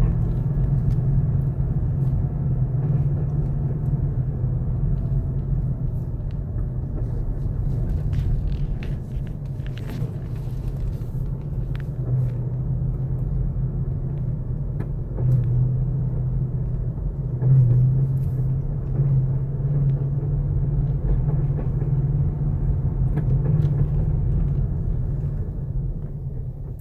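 2013 Mustang GT's 5.0-litre V8 running steadily at low speed, with a few short knocks around the middle: the low-speed clunk the owner is chasing.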